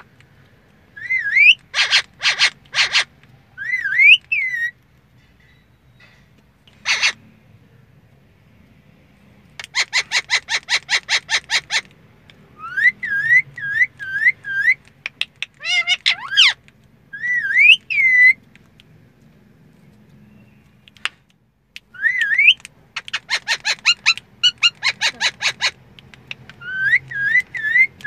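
Indian ringneck parakeet whistling in short rising and falling notes, broken by runs of rapid clicking calls at about ten a second.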